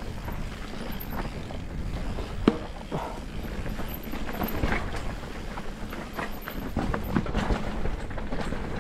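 Mountain bike descending a rough, rocky trail: tyres rolling over dirt and stones with a constant rattle and clatter from the bike, and a low rumble underneath. There is one sharp knock about two and a half seconds in.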